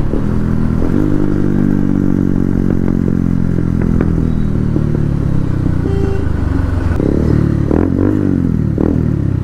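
Bajaj Pulsar's single-cylinder engine running through an aftermarket SC Project exhaust, with a deep, bassy note. The engine note falls slowly as the bike slows down, with a few short rises and falls near the end.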